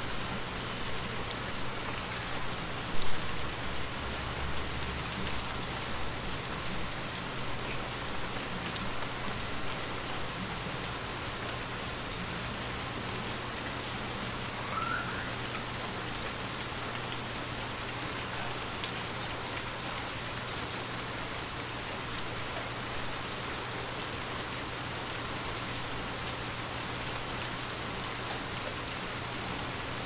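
Light rain falling steadily: an even hiss flecked with small scattered drop ticks, over a faint low steady hum. One sharper, louder tap stands out about three seconds in.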